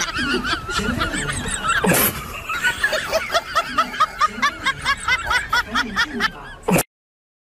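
A person giggling: a fast run of short, high laughs, cut off abruptly near the end.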